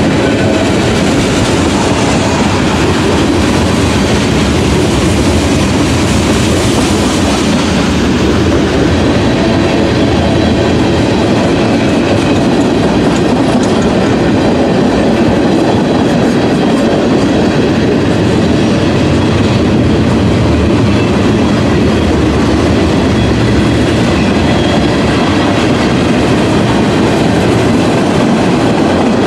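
CSX freight train rolling past at close range, a loud, steady running noise of the moving train.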